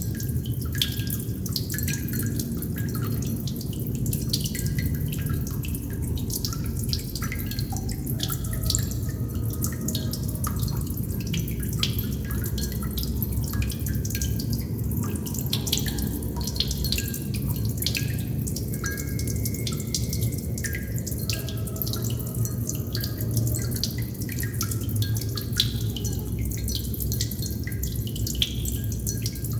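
Water droplets dripping in a dense, irregular patter, some drops giving short pitched plinks, over a steady low rumble.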